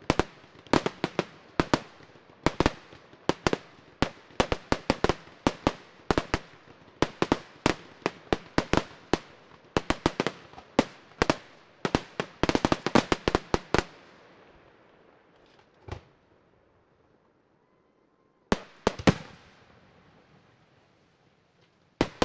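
Aerial fireworks display: rapid volleys of sharp bangs, several a second, for about fourteen seconds. Then a lull with only a few scattered bangs and a short cluster near the end.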